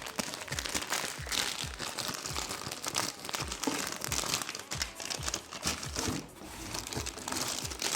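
Packaging wrapper crinkling and rustling in irregular crackles as it is handled and opened by hand.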